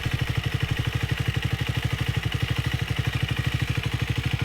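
Triumph Speed 400's single-cylinder engine idling steadily, at about eight even firing pulses a second.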